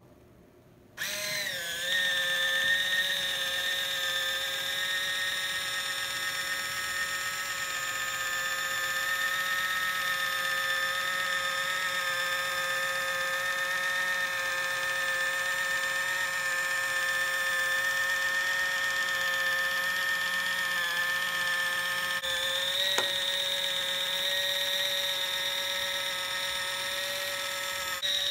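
Electric can opener sitting on top of a can, its small motor starting about a second in and then running with a steady whine as it cuts around the rim. There is one small click late on.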